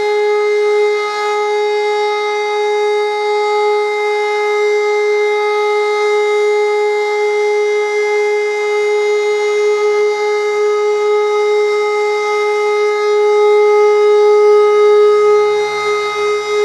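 Siemens E57 electromechanical civil-defence siren sounding one steady, unwavering tone, the continuous tone of the German all-clear (Entwarnung) signal.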